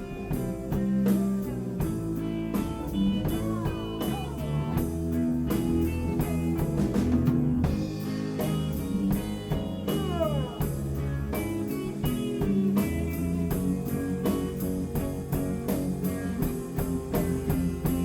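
Rock band playing an instrumental passage: a guitar lead with sliding notes over bass and a steady drum beat.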